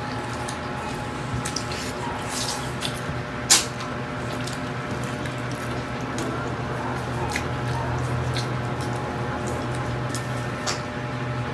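Wet chewing and lip smacks of someone eating stir-fried pork intestine, with scattered small clicks and one sharp click about three and a half seconds in, over a steady low hum.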